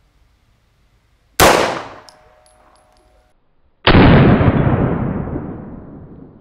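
Two loud 9 mm pistol shots from a CZ P-09, about two and a half seconds apart. The first is sharp and dies away quickly; the second is duller and echoes for more than two seconds.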